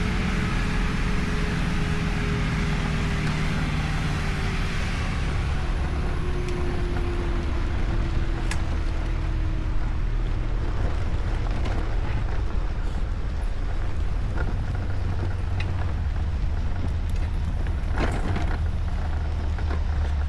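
Motors running with a steady low rumble, with a faint tone sliding slowly down in pitch in the first few seconds and a couple of brief clicks.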